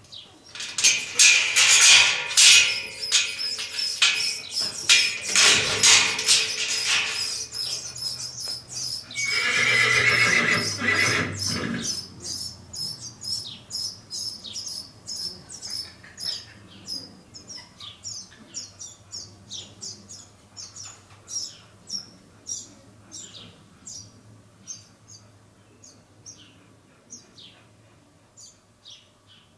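A john mule colt, a young male mule, calling loudly in a run of whinnying brays for about the first twelve seconds. After that come fainter short ticks about twice a second.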